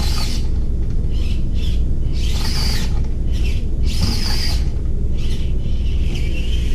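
Birds giving a series of short squawking calls, several arching up and down in pitch, over a steady low rumble of wind on the microphone.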